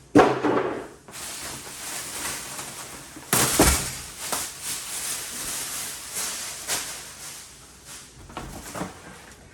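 Packaging being handled while a box is emptied: rustling and scraping of cardboard and plastic, with a sharp loud knock at the very start and another strong thump about three and a half seconds in, then smaller knocks.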